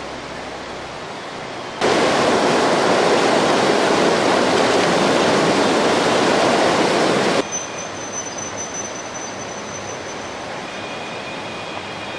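Floodwater in a swollen river rushing: a steady, noisy wash. About two seconds in it cuts in much louder, and about halfway through it drops back suddenly to a softer rush.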